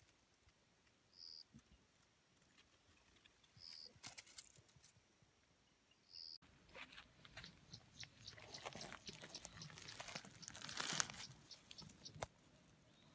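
Faint rustling and crunching of dry grass and plant stems, with scattered clicks, loudest about ten to eleven seconds in. Before that, a short high chirp sounds three times, a couple of seconds apart.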